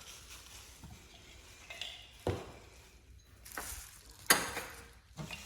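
Packaging and a collectible in its can being handled: a few sharp clicks and clinks with light rustling, the loudest about three-quarters of the way in.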